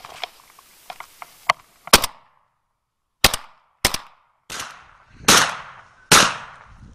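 Six shotgun shots in quick succession, roughly a second apart, the later ones trailing off in a long echo.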